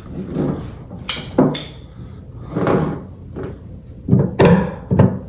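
Hand tools clanking and knocking on a seized, stripping tailgate bolt: several sharp metal hits, a pair about a second in and a cluster of three near the end, with scraping between them.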